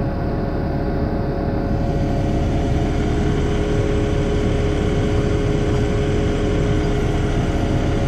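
A heavy truck's engine running steadily, a low rumble with a steady hum above it.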